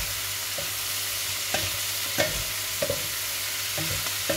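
Pork and vegetable stir-fry sizzling steadily in a non-stick pan as a wooden spatula stirs it, with about six knocks of the spatula against the pan.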